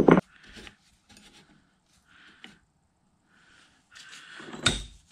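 A hammer blow on a punch, driving a taper pin out of a Bridgeport 6F power feed handle casting, as one loud sharp knock at the start. Then light metal clicks and the handling of parts, one short ringing ping, and another sharp knock near the end.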